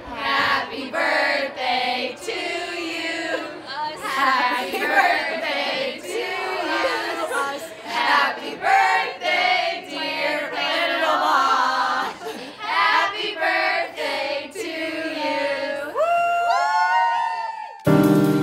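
A song with several singing voices, a choir-like group, as a music soundtrack. Near the end a few rising pitch sweeps come in before the sound cuts off abruptly.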